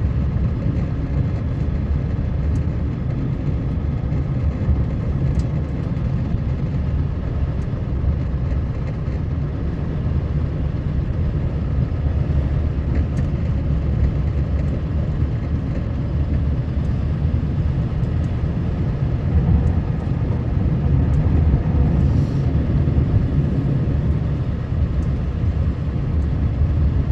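Steady low rumble of a motor vehicle running and moving, engine and running noise without a break.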